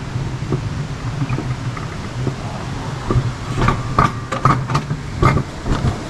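Alpine coaster sled running on its metal rail track while being hauled up the climbing section toward the top: a steady low hum, with a run of rattling clicks and clacks from about halfway through.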